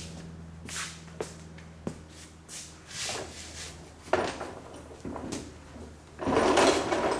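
Scattered clicks and knocks of objects being handled, with a louder rustling scrape about six seconds in, over a steady low hum.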